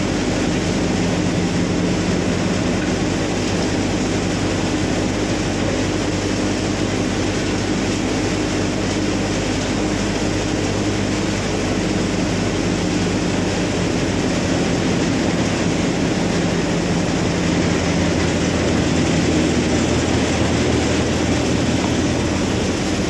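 Shri Ganesh threshing machine running steadily with a loud, even mechanical hum; its tone shifts slightly about two-thirds of the way through.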